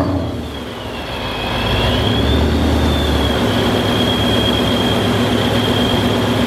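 Supercharged Ford Coyote 5.0 V8 idling just after a cold start, not revved. A high whine over the idle wavers down and back up in the first two seconds, then holds steady as the idle settles a little louder.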